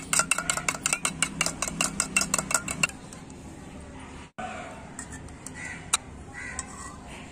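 A metal spoon beating eggs in a tiny metal bowl, clinking rapidly against the side at about seven strokes a second. The beating stops about three seconds in, followed by a few scattered clinks of the spoon on the bowl.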